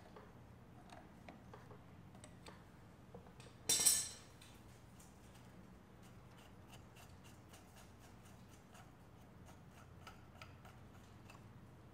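Faint small clicks and taps of hand tools and fittings as the fuel filter and its hose clamps are worked on in the engine bay of a diesel garden tractor. One short, louder sharp rasp comes about four seconds in.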